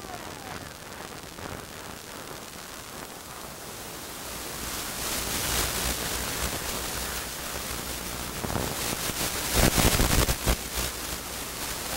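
Static hiss that grows louder about four seconds in, with a loud burst of crackling around ten seconds in, where the video signal breaks up.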